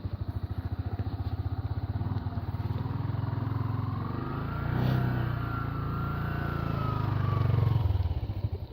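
Yamaha R15 motorcycle engine, a single-cylinder four-stroke, running with a fast pulsing throb. It picks up through the middle with a faint whine rising and falling over it, then eases back to a slower throb near the end.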